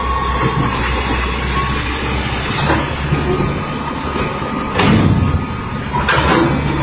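Tractor engine running steadily, with short bursts of noise about halfway through and again near the end.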